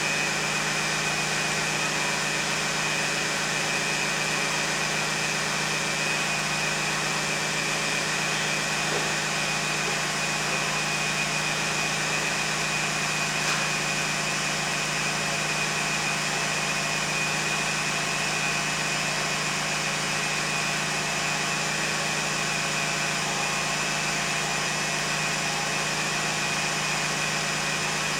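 2001 Lexus RX300's 3.0-litre V6 running steadily with a constant high-pitched whine over a low hum, holding the same pitch throughout with no revving.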